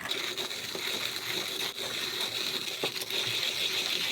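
1930s Zassenhaus 141 'Record' manual conical burr coffee grinder grinding coffee beans on its finest setting, burrs just touching: a steady crunching rasp as the handle is turned, starting abruptly, with a few sharp clicks.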